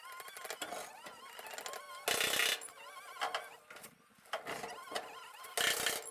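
Hand-pumped hydraulic body jack (porta-power) being worked against a steel body panel to push out a crease. There are rapid clicks, faint wavering squeaks, and two short, loud noisy bursts about two seconds in and near the end.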